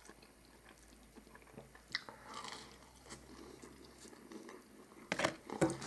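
A person biting into and chewing crispy fried chicken, faint, with a few sharp crunches that are loudest near the end.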